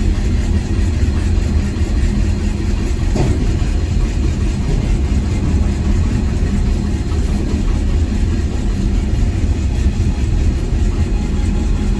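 Heavy engine machinery running steadily with a deep, even rumble.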